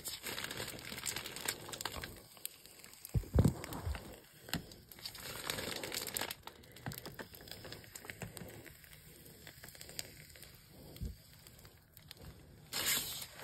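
Sugar body scrub being mixed and scooped by hand: irregular gritty crackling and scraping, with a dull knock about three and a half seconds in.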